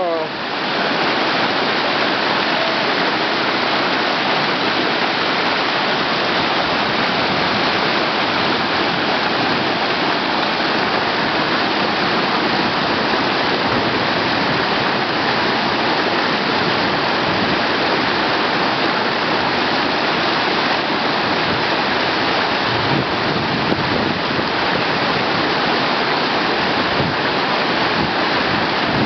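Steady rush of whitewater from a river's standing wave in a whitewater park, running at a high flow of about 1100 cubic feet per second.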